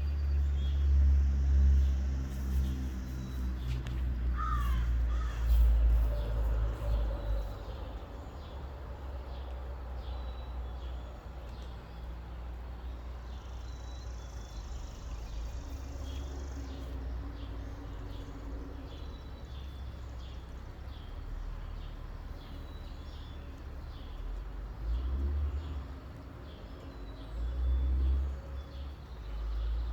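Heavy truck engine rumbling deep and loud, strongest over the first several seconds and surging again about 25 and 28 seconds in. A bird calls briefly about four seconds in, and faint bird chirps run underneath.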